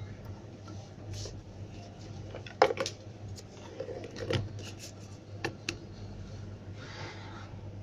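Clicks and knocks of an opened smartphone and small repair tools being handled and set down on a workbench. The loudest knock comes about two and a half seconds in, with lighter clicks later, over a steady low hum.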